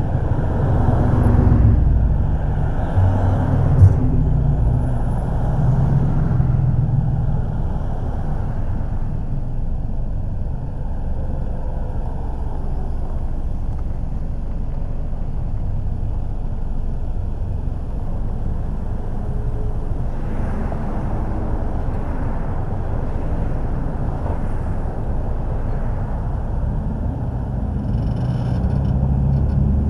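Car driving on city streets: steady engine and tyre rumble, with one sharp knock about four seconds in. The rumble swells louder near the start and again near the end.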